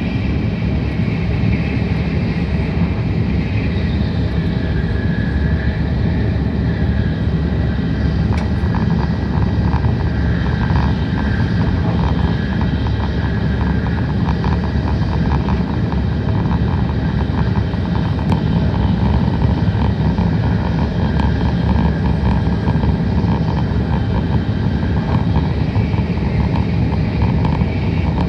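Tokaido Shinkansen train running at speed, heard from inside the passenger car: a steady, loud rumble of wheels on rail and rushing air.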